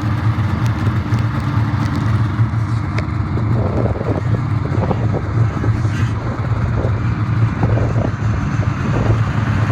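A vehicle engine running at a steady speed, a constant low hum, with wind buffeting the microphone.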